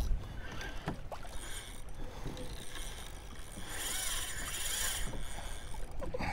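Water sloshing against a kayak hull, with wind rumbling on the microphone and a brief loud hiss about four seconds in.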